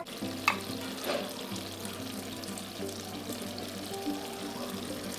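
Background music with held notes over a steady hiss of liquid being poured, with one sharp click about half a second in.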